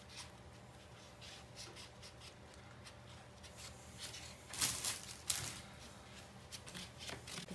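Faint scratching and rubbing of a water pen's tip on a plastic-coated water-drawing mat as it traces inside a stencil, with two brief louder rustles about four and a half and five seconds in.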